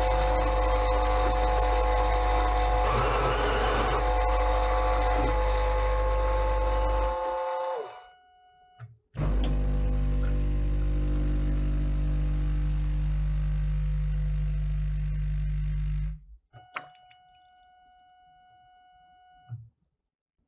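Fully automatic coffee machine making a cappuccino. A steady motor-and-pump hum with a high whine runs for about seven seconds while milk is dispensed, then stops. After a click it runs again steadily for about seven seconds. Near the end it is much quieter, with a faint steady tone and a couple of clicks.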